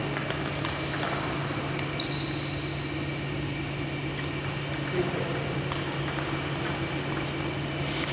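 Steady hum of an electric fan. About two seconds in there is a brief high squeak, and about five seconds in a single light tap.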